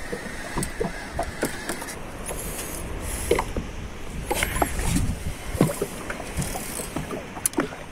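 Small fishing boat's engine running with a low steady rumble, with scattered sharp clicks and knocks and a few short high squeaks.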